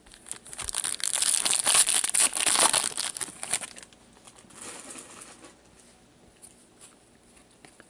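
A 2016-17 Upper Deck MVP hockey card pack being torn open, its wrapper crinkling in a dense crackle for about three seconds. A fainter rustle of cards being handled follows a second later.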